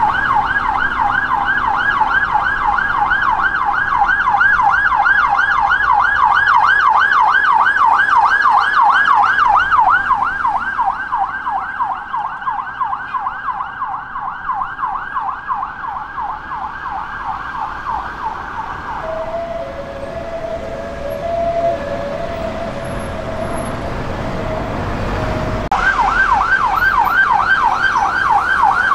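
UK police sirens on a fast yelp, sweeping up and down several times a second over road traffic. The yelp fades away about two-thirds of the way in and a lower two-note tone sounds for a few seconds. Near the end the yelp starts again abruptly, from a City of London Police Mercedes van.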